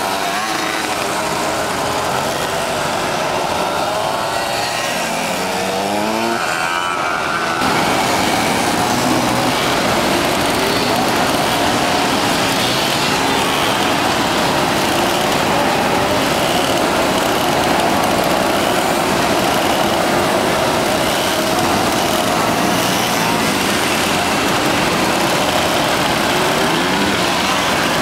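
Many small two-stroke moped engines running together, with pitches rising and falling as they are revved; the sound gets suddenly louder about seven seconds in.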